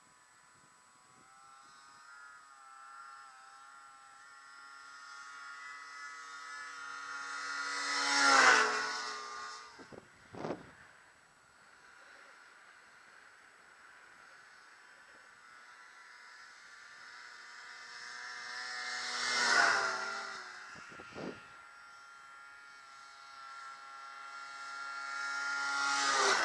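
Snowmobiles making three high-speed fly-bys in turn: each engine whine builds over several seconds, peaks as the sled passes close and drops in pitch as it pulls away. A short knock follows a second or two after each of the first two passes.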